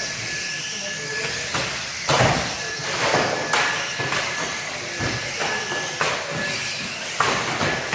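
Radio-controlled model saloon cars racing on a carpet track in a large hall: a continuous running noise of small motors and tyres, with several brief louder rushes as cars pass close or knock against the track barriers.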